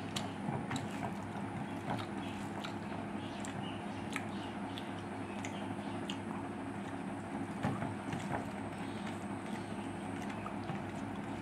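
Eating rice by hand: chewing and irregular small clicks and ticks of fingers mixing rice against a steel plate, over a steady low hum.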